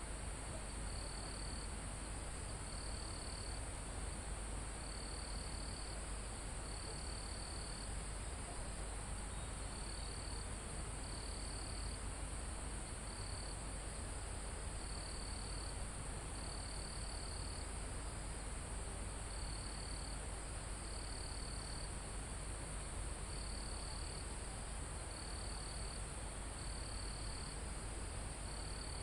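Night-singing insect chorus in a mountain forest: a steady, very high-pitched trill, with a lower cricket song in short trills of about half a second to a second, repeating with brief pauses. A steady low background hiss runs beneath.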